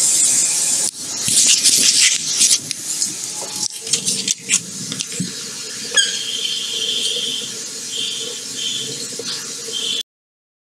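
Rubbing and knocking from the recording phone being handled and moved. From about six seconds in, a high squeal comes and goes four times, then the sound cuts off suddenly near the end.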